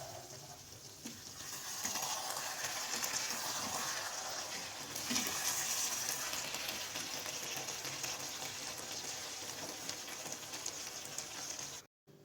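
Food frying in a hot pan, a steady crackling sizzle that grows louder about two seconds in and then cuts off abruptly near the end.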